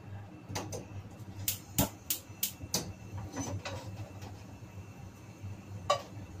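Gas hob igniter clicking in a quick run of about three clicks a second as a burner is lit, followed a few seconds later by a single metal knock as a pan is shifted on the grate.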